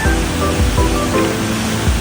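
Background music: a melody of held notes over a drum beat, laid over a steady rushing noise.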